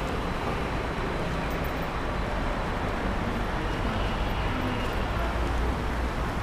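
Steady low rumble and hiss of a running escalator and the station hall around it, even throughout with no distinct events.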